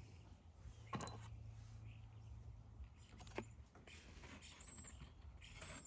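Faint handling of folded cardboard and a small metal clip: a sharp click about a second in and a lighter click a little past three seconds, as the clip is snapped onto the cardboard, over a low steady hum.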